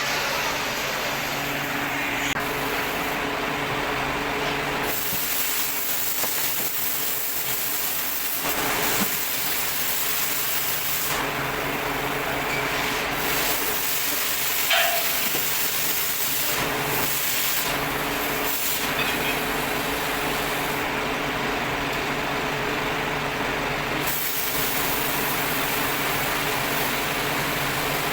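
Steady abrasive grinding hiss of metalworking, with a faint steady hum underneath.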